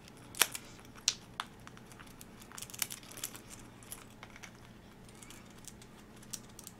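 White-bellied caique chewing and splintering a piece of yucca wood with its beak: irregular sharp cracks and crunches, the loudest about half a second and a second in.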